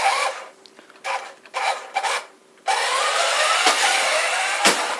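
Toy remote-control car's small electric motor whirring in three short bursts, then running continuously from a little before the halfway point with its pitch rising and falling. Two sharp knocks near the end.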